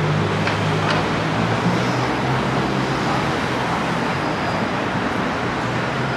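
Busy city road traffic running past steadily: a wash of vehicle noise with a low engine hum underneath.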